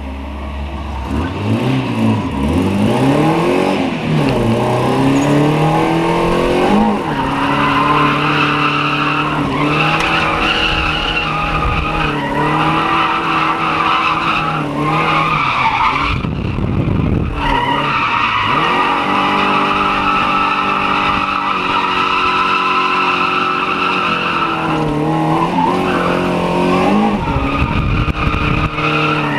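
FSO Polonez drift car with a Rover 1.6 engine, heard from inside the cabin while drifting: the engine revs rise and fall through the slides, with the tyres squealing steadily over it. Near the middle the squeal drops out briefly under a low rumble, then returns.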